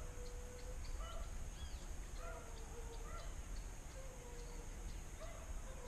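Faint baying of hunting dogs, long drawn-out howls mixed with shorter calls repeating about once a second, with a small bird chirping.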